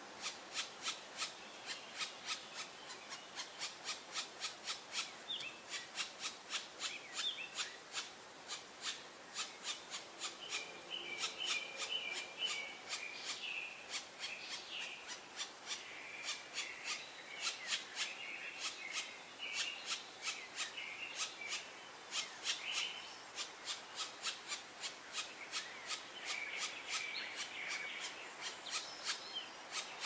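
Black woodpecker nestlings begging inside the nest cavity: a steady run of short, rasping calls, about three a second, that never lets up.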